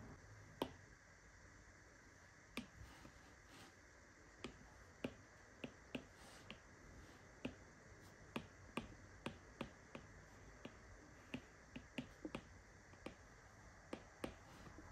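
Apple Pencil's plastic tip tapping on the iPad's glass screen as short brush strokes are laid down: light, sharp clicks at irregular spacing, a few a second, over a quiet hiss.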